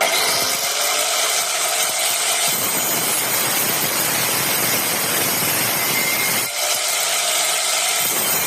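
Angle grinder mounted as a homemade table saw, running at speed with a steady high whine over a dense cutting noise. The sound drops briefly about six and a half seconds in, then carries on.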